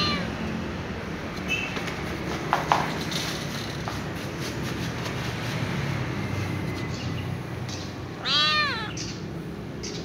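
Ginger-and-white kitten meowing: one clear, loud meow near the end, and the tail of another at the very start. Two sharp clicks come about a quarter of the way through, over a steady low background hum.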